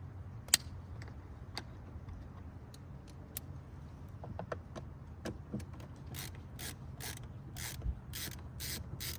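Phillips screw being backed out of a car door trim panel with a screwdriver: scattered sharp clicks, then from about six seconds a regular run of ratcheting clicks at about two a second.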